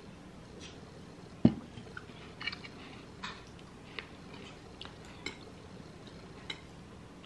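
Knife and fork clinking against a dinner plate in scattered sharp clicks as steak is cut. A single low thump about a second and a half in is the loudest sound.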